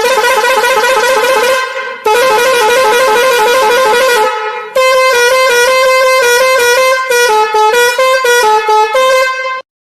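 Musical vehicle horn playing a tune: two warbling blasts, then a melody of stepped notes that cuts off abruptly near the end.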